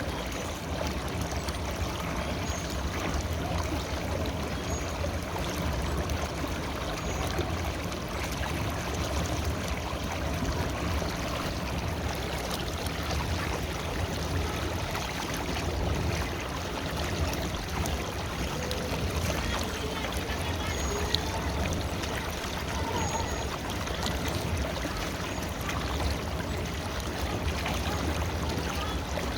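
River water flowing: a steady, even rush of water with a low rumble underneath.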